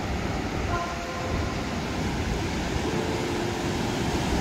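Steady rumble of surf and wind buffeting the microphone, with a few faint brief tones about a second in and again near three seconds.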